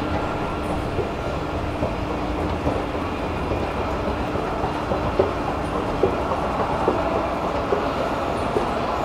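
Metro station escalator running with a steady mechanical rumble and hum. From about two seconds in, short sharp ticks come a little under a second apart.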